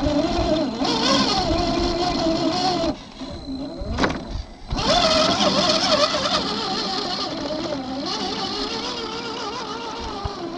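RC4WD Trail Finder 2 1/10-scale crawler's electric motor and gear drivetrain whining as the truck crawls over rocks, the pitch wavering with the throttle. About three seconds in the whine drops away for a second or two, a sharp click sounds, and then the whine picks up again.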